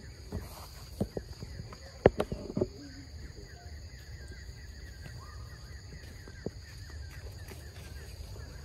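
A few sharp crunches and taps, like steps on dry leaves and gravel, in the first three seconds, over a steady high insect drone that runs on after them.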